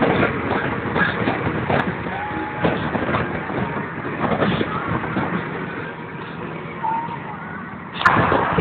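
Car driving at motorway speed, heard from inside the cabin: steady road and engine noise with scattered small knocks. Near the end it gets suddenly louder with a rush of wind.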